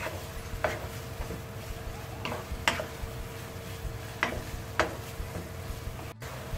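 Wooden spatula stirring thick chilli con carne mince in a non-stick frying pan, with about six sharp scrapes and taps against the pan over a soft, steady sizzle of the simmering sauce.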